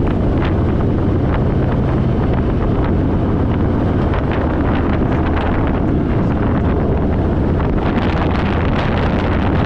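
Harley-Davidson Fat Boy V-twin engine running steadily while riding, under heavy wind noise on the microphone.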